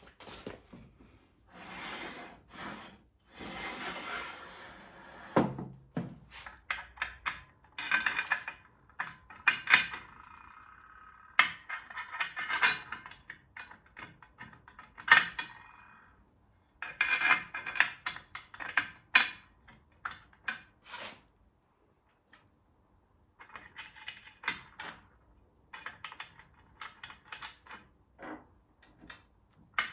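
Irregular clatter from parts of a Bosch GTS10XC table saw being handled and fitted during setup: rubbing and scraping first, then scattered knocks and clicks of metal and plastic pieces, with a brief pause about two-thirds of the way through.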